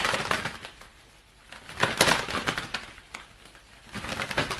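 Two leather gloves flapped together to imitate a bird's wings beating: quick flurries of flapping strokes at the start, about two seconds in, and near the end.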